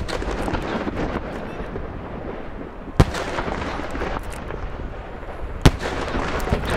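Fireworks display: three sharp booms of shells bursting, one at the start, one about three seconds in and one near the end, over steady crackling.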